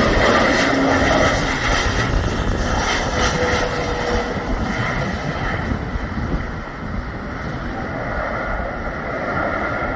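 Airbus A320neo's jet engines as the airliner lands: a loud jet rush with steady high whining tones. It fades as the plane rolls away down the runway.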